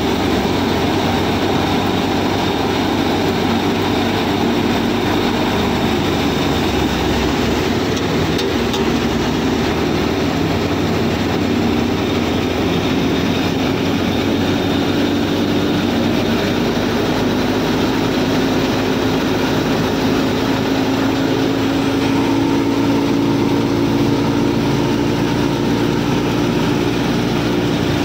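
Miniature model wheat thresher running steadily, its small motor and drum giving a constant mechanical hum that rises slightly in pitch in the second half, with threshed grain rattling out through the chute.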